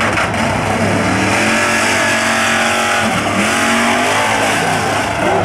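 Lifted mud truck's engine revving hard at high throttle, its pitch climbing and holding high, dipping briefly about three seconds in, then climbing again.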